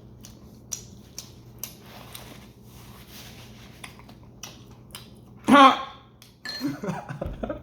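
A person eating a sandwich: faint clicks and soft rustling of chewing and handling food, then about halfway through a loud, short, wordless vocal exclamation of reaction to the taste, followed by a few quieter vocal noises.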